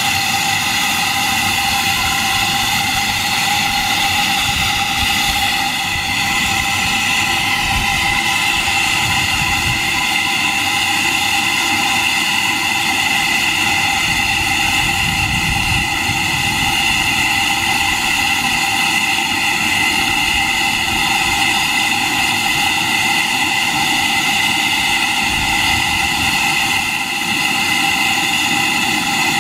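Steam hissing steadily and loudly around an 1890–1900 Atlas automatic steam engine under steam, with a few steady whistling tones in the hiss and an irregular low rumble beneath.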